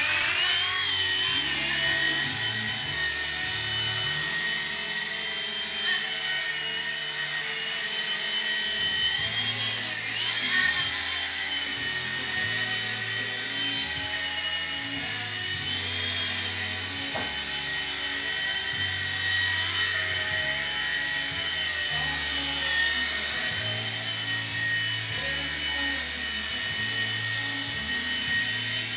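MSR camping stove burner running with a steady rushing noise and a high whistling tone that wavers slightly, the unpleasant noise the owner calls awful.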